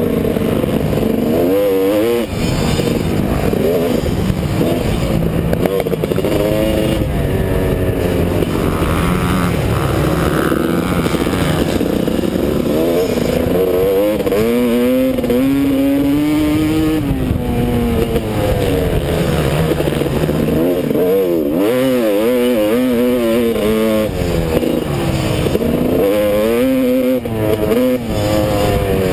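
Motocross bike engine heard close up from the bike itself while riding a dirt track, its pitch rising and falling again and again as the rider accelerates, shifts and backs off for corners.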